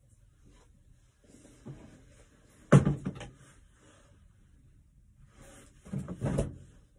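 Knocks and clatter of a leather work boot being handled on a workbench: a sharp knock with a short rattle about three seconds in, and a second group of knocks near the end.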